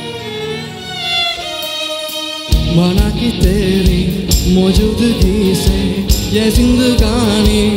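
Live band music: a violin plays a melody with sliding notes, then about two and a half seconds in the full band enters, with drum kit and bass keeping a steady beat under the melody.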